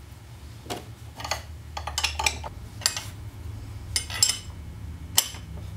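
Steel wrenches clinking against the nut and bolt of a bearing installation tool as the nut is turned and tightened, about eight short metallic clinks at an uneven pace over a steady low hum.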